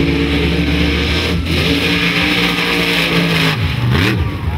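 Mud truck engine held at high revs while it churns through a mud pit, with a short dip about a second and a half in and the revs falling away near the end. Under it runs a steady hiss of the tyres throwing mud.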